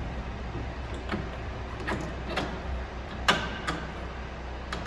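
A series of short, sharp clicks and knocks from hands working cable and trim at the top edge of a car's raised tailgate. The loudest click comes about three seconds in, over a steady low hum.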